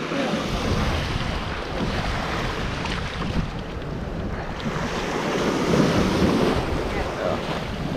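Ocean surf washing onto the beach, with wind on the microphone; the wash swells to its loudest about six seconds in.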